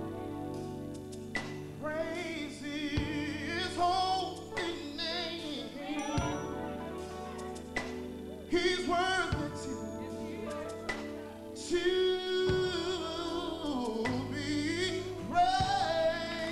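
A gospel song: a male soloist sings over sustained instrumental accompaniment, his voice bending and sliding between notes.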